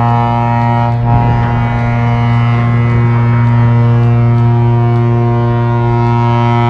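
Ship's horn sounding one long, steady, deep blast in salute as a newly built ship is side-launched, with a wash of splashing water under it about a second in.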